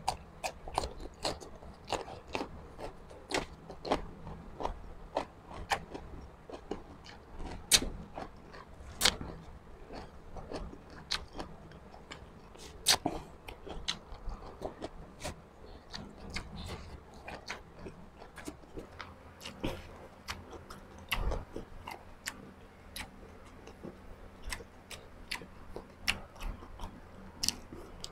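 A person chewing and biting food close to the microphone, with many short sharp clicks throughout.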